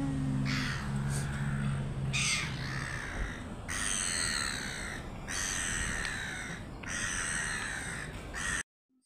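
Red-billed gulls calling: a run of about six harsh cries, each under a second long, some running into one another. A steady low hum sits under the first few seconds, and the sound cuts off abruptly near the end.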